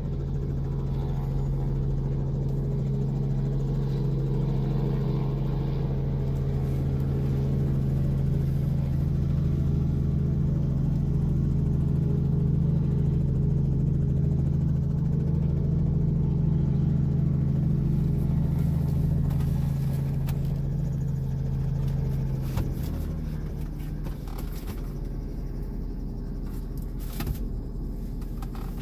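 Robinson R44 helicopter hovering close by with its piston engine and rotor making a steady low drone, which drops noticeably in loudness about 23 seconds in as it settles onto the pad with the rotor still turning.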